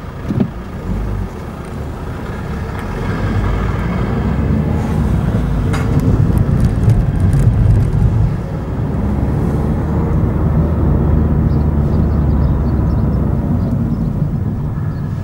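Car pulling away from a standstill and accelerating, its engine and road noise building over the first several seconds. The sound dips briefly about eight seconds in, then settles to a steady cruise. Two short thumps come right at the start.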